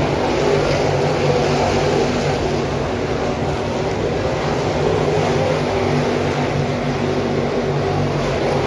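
Dirt late model race cars' crate V8 engines running on the track, a steady loud engine drone with no single car rising above the rest.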